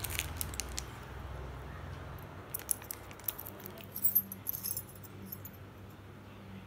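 A handful of steel drill bits clinking and rattling against each other as they come out of a plastic zip bag, with some crinkling of the bag; the clinks come in clusters, the loudest about four seconds in.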